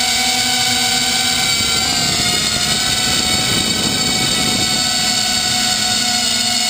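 FPV250 quadcopter's four brushless motors (1806, 2400Kv) and propellers whining steadily, recorded from the onboard GoPro. The whine dips slightly in pitch about two seconds in, and a rushing noise rises through the middle for a couple of seconds.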